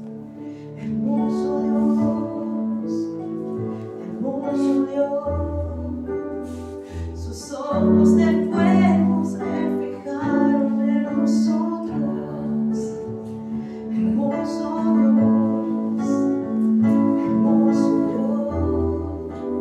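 A woman singing a slow worship song into a microphone, backed by sustained chords on an electronic keyboard, with deep bass notes entering at times.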